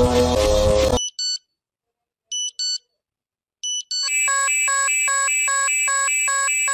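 Emergency alert system signal: three short electronic beeps with silent gaps between them, then about four seconds in a loud, rapidly pulsing alarm of several tones sounding together that keeps going.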